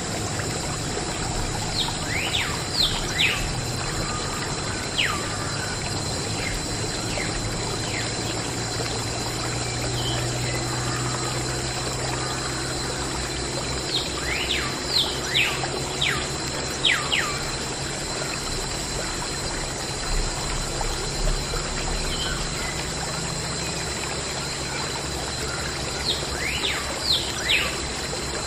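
Steady trickle of running water with small birds chirping over it. The same cluster of quick falling chirps comes back about every twelve seconds.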